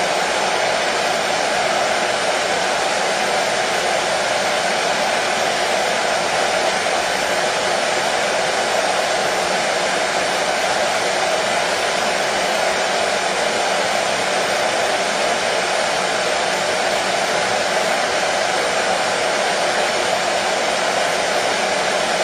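Hair dryer running steadily, a constant even whoosh with no change in speed, played as a soothing sound for colicky babies.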